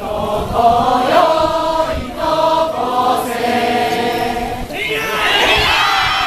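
A large group of festival participants chanting together in long held notes. About five seconds in, this gives way to many voices shouting at once as the procession starts running.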